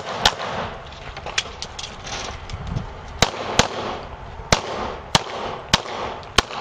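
Pistol shots: a quick pair near the start, then, after a pause of nearly three seconds, six more shots in fairly quick succession, about half a second to a second apart.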